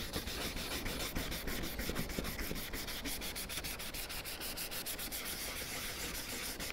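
Sandpaper, 320 grit, rubbed by hand over body-filler repairs on a plastic wheel trim, a steady scratchy rasp of rapid, even strokes, blending the filler smooth ahead of primer.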